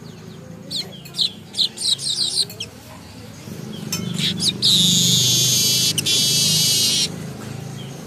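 Caged male weaver bird (manyar) practising its song while still learning it: a run of short, falling chirps, then a long, buzzy, hissing trill of about two and a half seconds that stops abruptly.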